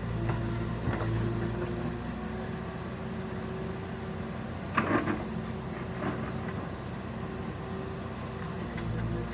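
Diesel engine of a construction machine (excavator or backhoe) running steadily at work, its note easing after about two seconds and picking up again near the end. One sharp metallic clank about five seconds in.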